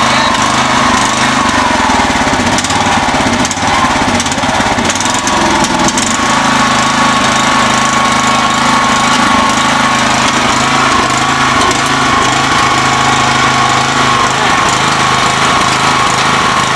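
Riding lawn mower's small engine running steadily under load, trying to tow a heavy boat that it cannot pull, with a high whine that wavers a little early on and then holds level.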